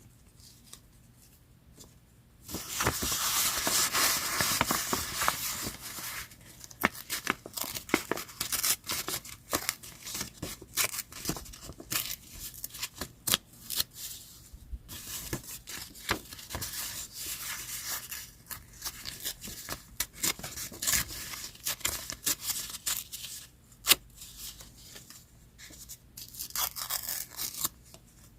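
Paper being handled and cut with scissors. A loud stretch of paper rustling starts about two and a half seconds in, followed by a long run of sharp snips and clicks.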